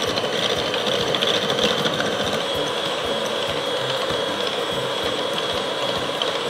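Electric hand mixer running steadily with its two wire beaters whipping cold cream in a glass bowl: a constant motor whine with a fast clicking rattle from the beaters, as the cream is beaten toward soft peaks.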